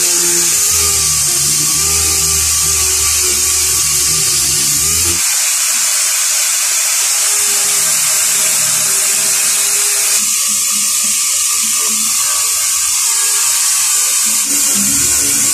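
Pneumatic orbital sander running steadily against a car door panel, a continuous high-pitched air hiss, sanding down the old paint ahead of a respray.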